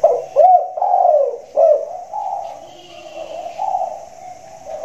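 Spotted dove cooing, a big-voiced ('suara besar') bird: a run of several loud, arching coo notes in the first two seconds, then softer, lower coos.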